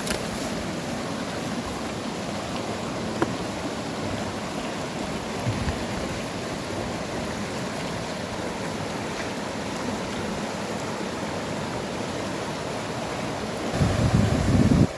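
Steady rushing of strong wind with flowing river water. Near the end a heavier gust buffets the microphone with a low rumble.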